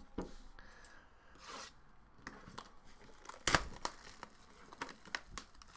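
Plastic shrink wrap being torn and crinkled off a sealed trading-card box, in scattered crackles with a sharper crackle about three and a half seconds in.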